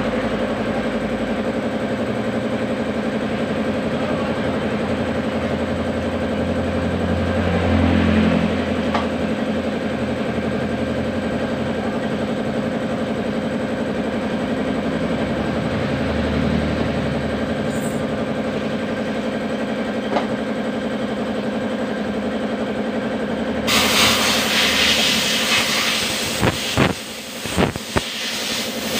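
Steady drone of an engine running nearby. About 24 seconds in a hiss comes in suddenly, and several sharp clicks follow near the end.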